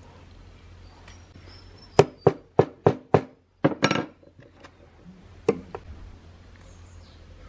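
Five sharp knocks about three a second, then a brief rattle and, a little later, one more knock: hand tapping during work on the mechanical alarm clock.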